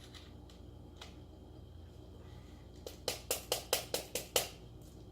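Small metal parts on a motorcycle cylinder head tapping and clicking: a few faint clicks, then a quick run of about eight sharp metallic taps, about five a second, as a stubborn cam-cap locating dowel is worked loose.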